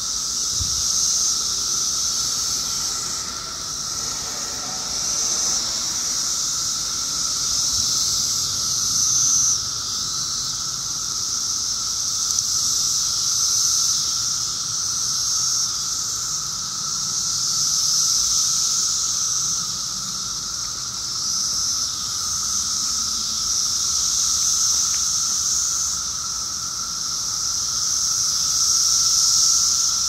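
Chorus of Brood X periodical cicadas: a loud, high hissing buzz that swells and fades in waves every few seconds, over a steadier, lower droning hum from a second kind of cicada.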